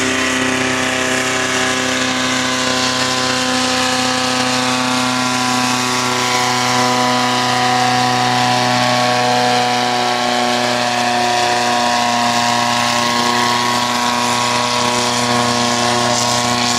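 Diesel engine of a pulling tractor running flat out under heavy load as it drags a weight sled, black smoke pouring from the stack; one steady, unbroken engine tone held at high revs.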